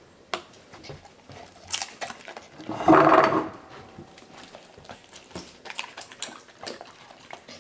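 Golden retriever eating vegetables: scattered sharp clicks and crunches, with one louder, briefly pitched sound lasting under a second about three seconds in.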